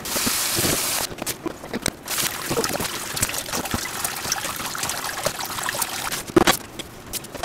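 Kitchen tap running into a metal bowl in a stainless-steel sink, loudest in the first second, with small clicks and clatter from hands working in the bowl and a single louder knock near the end.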